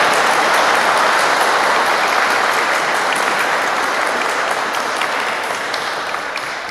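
Wedding congregation applauding, a long, dense round of clapping that slowly dies away near the end.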